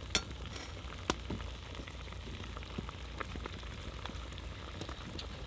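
Zirvak of meat, carrot and onion in a kazan sizzling and bubbling, with boiling water just poured in: a steady patter of small pops, with two sharper clicks near the start and about a second in.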